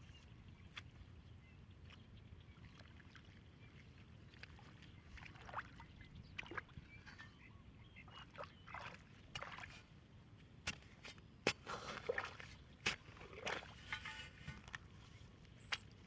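Water sloshing and splashing in short, irregular bursts, with scattered small knocks, busiest in the second half.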